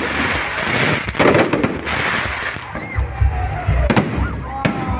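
Fireworks going off: repeated bangs and crackling, with deeper booms about three seconds in.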